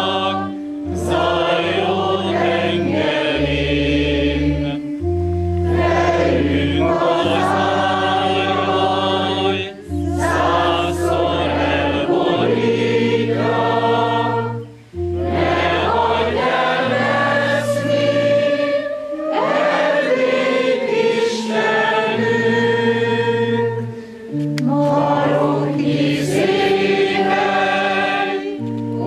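Many voices singing a hymn together, phrase by phrase with short breaths between, over long held bass notes.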